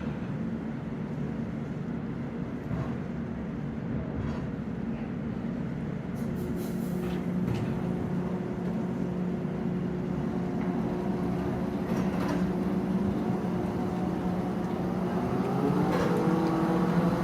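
Steady low machinery drone made of a few held tones. About fifteen seconds in, a second set of tones rises in pitch and then holds, and the sound gets slightly louder.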